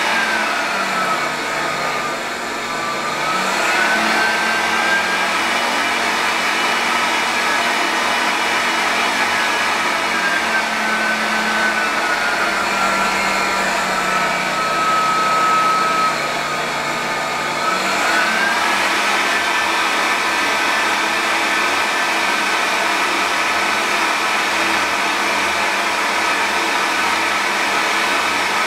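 Electric fan blowing air up a PVC tube: a steady rushing with a motor whine whose pitch shifts as the fan speed is varied. The whine dips and climbs back at the start, sinks slowly through the middle, climbs again about two-thirds of the way through, and then holds steady.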